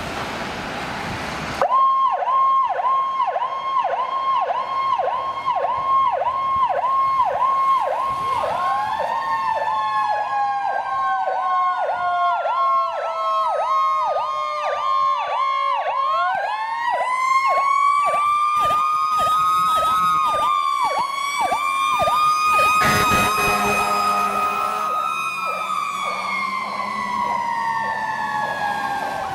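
Fire truck sirens: a fast-warbling electronic yelp starts suddenly. A second siren rises, slowly falls in pitch, rises again higher and holds, then falls. A short horn blast sounds about two-thirds of the way through.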